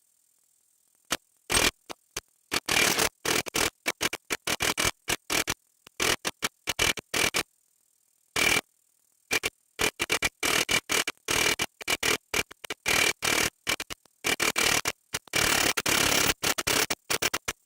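Milwaukee M18 1-inch cordless impact wrench hammering on a rusted lug nut to break it loose. It runs in many short stuttering bursts with abrupt stops between them, sparse at first and almost continuous from about halfway on.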